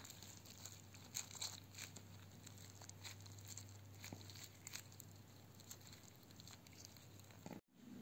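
Faint wet tearing and crinkling of roasted bell pepper skin being peeled off by gloved fingers, with a few sharper crackles in the first couple of seconds. A faint steady low hum sits underneath.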